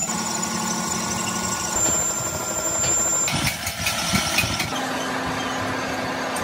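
Metal lathe running while a cutting tool turns a steel spindle: a steady machine hum with a high, thin whine from the cut. The tones shift abruptly a couple of times, about two, three and a half, and five seconds in.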